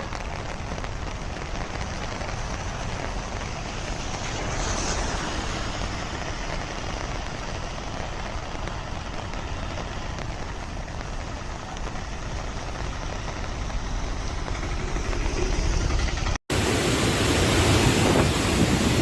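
Steady rushing water noise with no distinct events. About two-thirds of the way through it cuts off abruptly and is replaced by louder, gusty rushing with wind buffeting the microphone.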